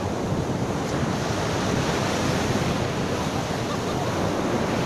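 Ocean surf breaking steadily on the shore, with wind buffeting the microphone.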